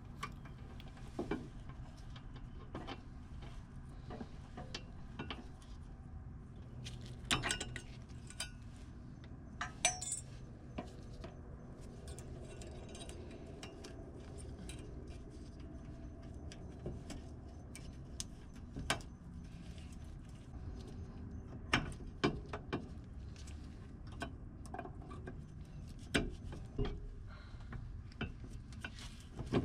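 Scattered metallic clinks and knocks of hand tools against car brake parts during a brake caliper and rotor job, over a low steady hum.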